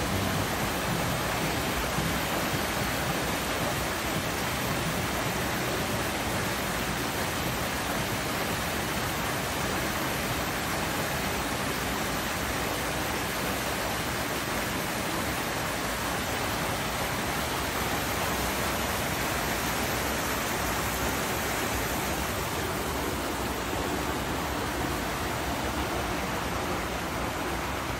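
Small waterfall: water spilling steadily over a low rock ledge into a pool below, an even, unbroken splashing.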